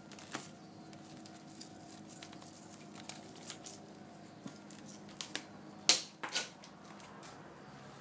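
Rough collie puppies scuffling at play in wire pens: scattered light clicks, taps and scuffs, with a few sharper clicks a little after the middle.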